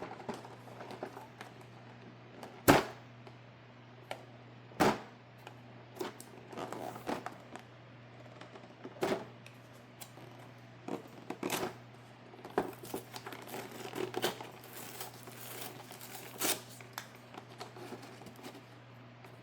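Toy-car packaging being opened and handled: cardboard and plastic rustling, with scattered sharp taps and knocks. The loudest knock comes about three seconds in.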